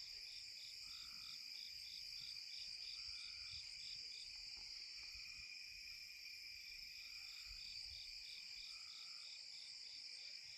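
Faint night chorus of crickets and other insects: a steady high trilling, with one insect chirping about four times a second and a lower call repeating every second and a half or so.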